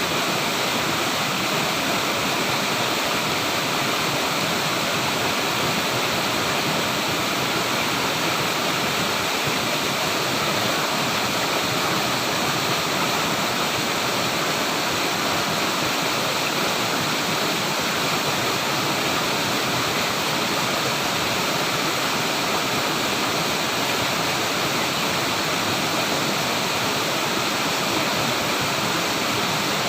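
Flowing water: a steady, even rush with no breaks or changes, like a small waterfall or fast stream.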